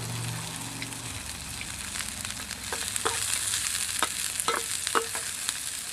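Whitefish and frog legs frying in vegetable oil in a thin skillet over campfire embers: a steady sizzle, with several sharp clicks of a knife blade against the pan as the fish is turned, from about two and a half to five seconds in.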